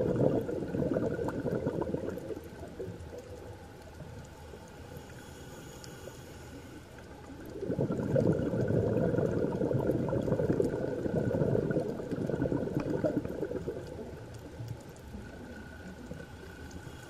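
Scuba diver's exhaled air bubbling out of the regulator, recorded underwater. There are two bursts of bubbling, one at the start and one about halfway through, each a few seconds long, with quieter breaths in between.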